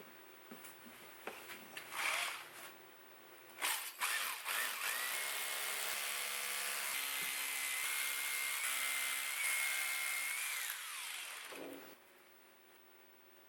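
Electric power tool motor started after a couple of knocks. It runs at a steady high whine for about six seconds, then is switched off and winds down with falling pitch near the end.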